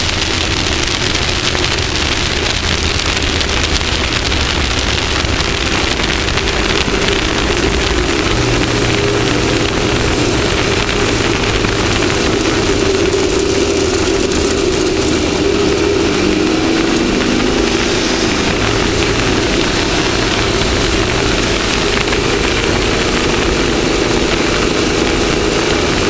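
Off-road race vehicle's engine running steadily under power, its pitch wavering slightly, under a loud constant rush of wind and terrain noise.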